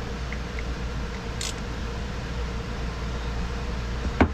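Steady background hum and hiss, with a few faint ticks and one sharp metal click near the end as a small wrench works the bolts on a Sea-Doo Rotax engine.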